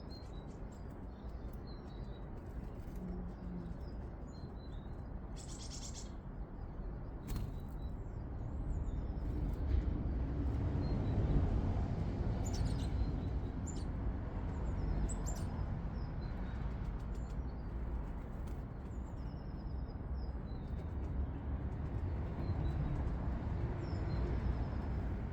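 Garden songbirds giving short, high chirps and calls here and there, over a steady low outdoor rumble that swells for a few seconds near the middle.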